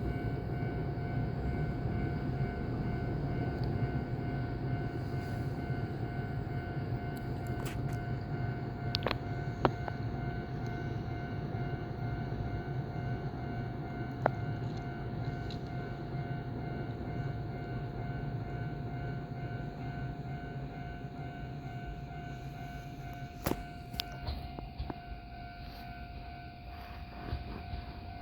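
Japanese level crossing warning bell ringing steadily, over the low rumble of an E235 series electric train moving slowly out of the depot toward the crossing. A few sharp clicks are heard along the way.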